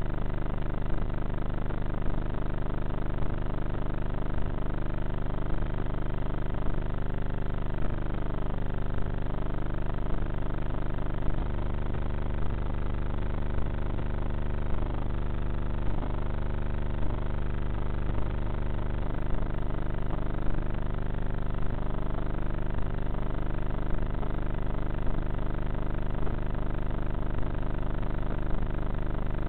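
Electric motor and propeller of a Bixler model plane in flight, heard from its onboard camera: a steady drone whose pitch drifts slowly up and down with the throttle.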